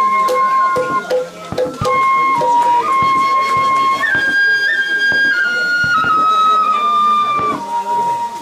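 Music: a flute-like melody of long held notes that jumps up about halfway through and then steps back down, over a soft accompaniment with light percussion.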